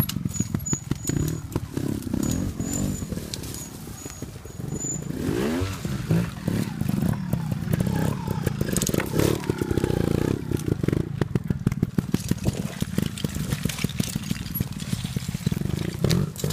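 Trials motorcycle engine running at low speed and revving up and down a few times, with rapid firing pulses throughout.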